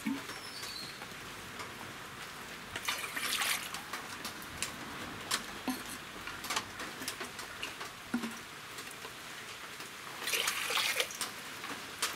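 Water being dipped from a clay pot and poured, with two short splashing pours, one about three seconds in and one near the end, and light clinks of vessels being handled between them.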